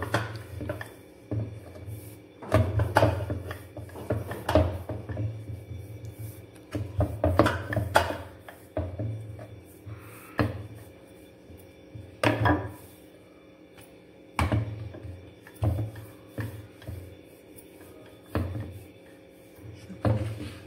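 Wooden rolling pin rolling dough out on a wooden board, rumbling and knocking in bouts of a second or two with short pauses between.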